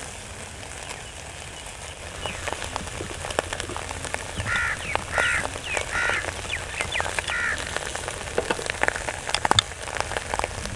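Charcoal grill crackling and sizzling as a cream-and-egg mixture is spooned over chicken skewers and drips onto the hot coals, with sharp crackles growing denser toward the end. In the middle, an animal gives about five short calls in a row.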